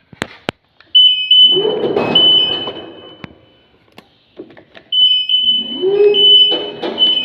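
Genie GS-2632 scissor lift's motion alarm sounding a high, shrill tone in two runs, one about a second in and one about five seconds in, each over the whine of the lift's electric motor rising to speed. The alarm now sounds when the machine moves, after being reconfigured.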